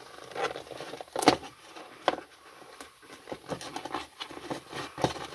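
Hand-handling noises of a stroller wheel's tire and inner tube being worked onto the rim: irregular clicks, taps and rubbery rustling, with one sharper click about a second in.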